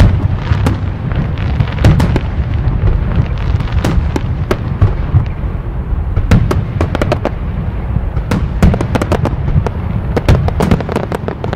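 Fireworks display: aerial shells bursting in rapid succession, a dense run of sharp bangs over a continuous low rumble.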